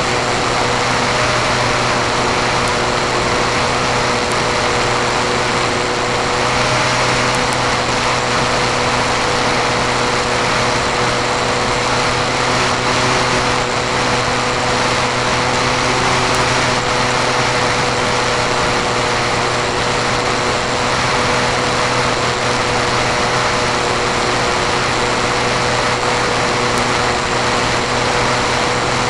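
A small aircraft engine running steadily in flight, with wind rushing over the microphone.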